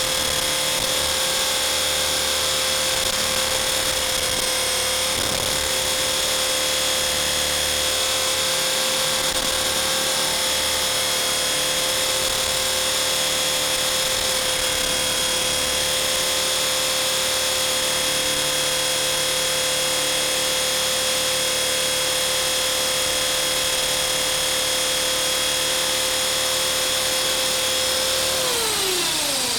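Blade 450 3D electric RC helicopter's motor and rotor whine, holding a steady high pitch, then dropping quickly in pitch near the end as the rotor spools down.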